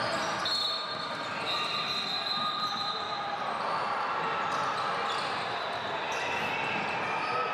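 Basketball game sounds in a large hardwood-floored gym: the ball bouncing on the court amid players' and spectators' voices. About half a second in, a held high tone sounds for a couple of seconds.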